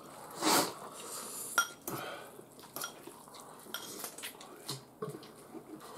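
Forks clinking and scraping against glass bowls and a metal baking tray as noodles are lifted and eaten, with a short louder swish about half a second in and scattered light clinks after it.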